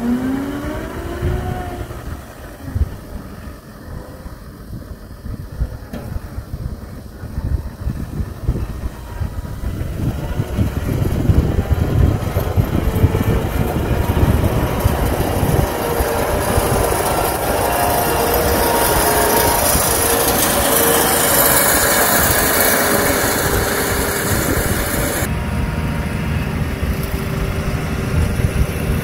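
Steyr tractor's diesel engine running as the tractor drives past spreading fertilizer with its mounted spinner spreader, growing louder from about a third of the way in, with a high hiss rising along with it. Near the end the high hiss stops suddenly and the engine sound carries on at a lower level.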